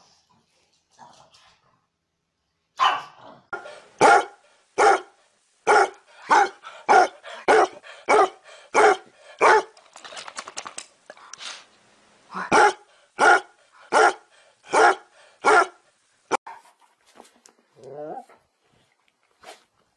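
Dogs barking: a run of loud, single barks at roughly one to two a second, with a short break midway.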